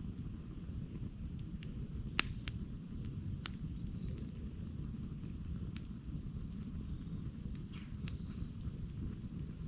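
Wood campfire crackling: scattered sharp pops and snaps, the loudest about two seconds in, over a steady low rumble.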